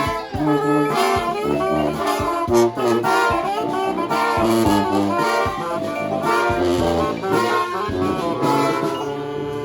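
Brass band playing, horns in harmony over a low bass line, settling into long held notes near the end.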